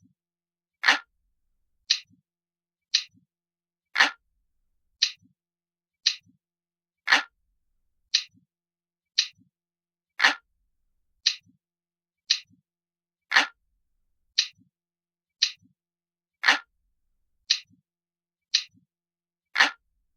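Looped clock ticking sound effect, about one sharp tick a second, with every third tick louder and fuller.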